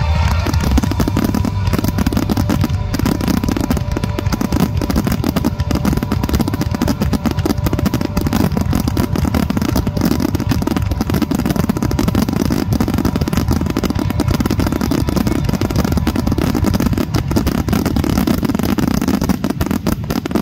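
Fireworks barrage: many aerial shells bursting in rapid, overlapping succession, a dense continuous rumble of booms.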